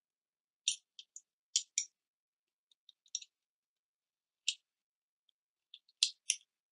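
Short, sharp metal clicks from the parts of a Beretta Px4 Storm pistol being handled and fitted together during reassembly, some in quick pairs, with silent gaps between.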